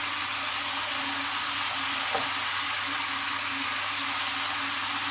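Chicken, corn and capsicum sizzling steadily in a hot frying pan as boiled noodles are tipped in.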